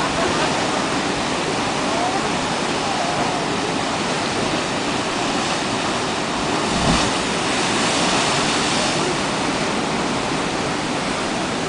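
Atlantic surf surging into a narrow granite sea crevice, a steady loud rush of churning water with a brief low thump about seven seconds in.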